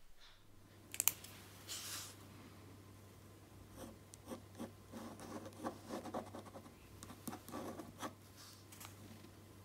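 Pen scratching on paper in many short strokes as it traces around a leather zipper pull tab, with a sharp click about a second in.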